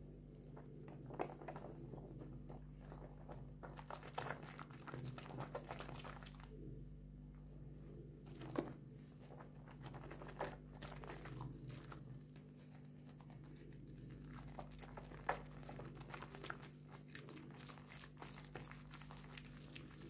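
Hands squeezing and kneading thick soap lather: a faint, irregular wet crackling of foam with a few sharper pops scattered through.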